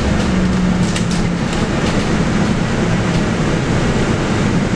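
Cabin noise of a 2018 Mercedes-Benz O500LE bus on the move: its OM936LA six-cylinder diesel and ZF EcoLife automatic running steadily under road rumble, with a low hum and a few rattles and clicks.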